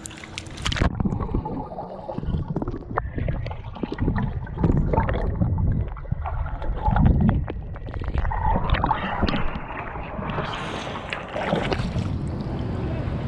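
Pool water heard from underwater as a boy swims past: muffled low rumbling and gurgling of churned water with small clicks. A splash at the start as it goes under, and brighter splashing and sloshing once it is back above the surface about ten seconds in.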